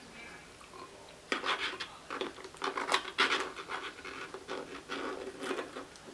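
Crab leg shells crackling and snapping as they are broken apart by hand, a busy run of irregular cracks beginning about a second in.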